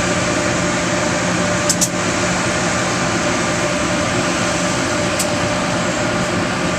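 A steady mechanical hum, a constant low drone with a higher steady tone over it, broken by two brief clicks about two seconds in and a faint one around five seconds.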